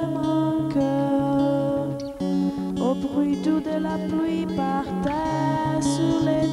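Music led by plucked acoustic guitar, with sustained notes, some sliding upward, over a low bass note repeated in short strokes about twice a second.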